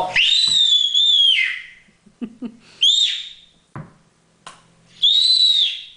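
A toddler's very high-pitched squeals, three in all: a long held one at the start, a short one about halfway, and another held one near the end, each at a nearly steady, whistle-like pitch.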